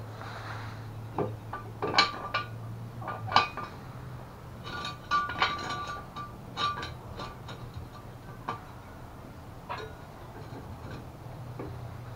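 Metal tools and parts clinking and tapping during hands-on work on a mobility scooter's bumper and frame. The sharp clinks come irregularly, some with a short metallic ring, and are busiest in the middle, over a low steady hum.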